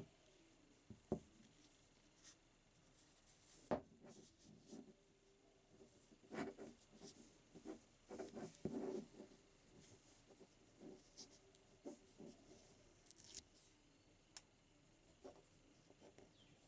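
Faint handling sounds of gloved hands fitting a metal ferrule onto a wooden sickle handle. There are a couple of sharp clicks in the first few seconds, then rubbing and scraping from about six to nine seconds in, with scattered small ticks after.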